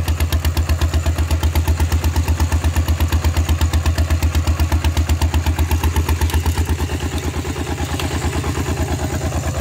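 Single-cylinder diesel engine of a two-wheel walk-behind tractor pulling a plow, running under load through a loud open exhaust pipe: a steady, rapid chugging that eases slightly in level about seven seconds in.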